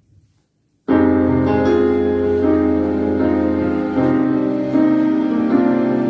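Instrumental intro of a song's backing track: sustained keyboard chords over a bass line, starting suddenly about a second in.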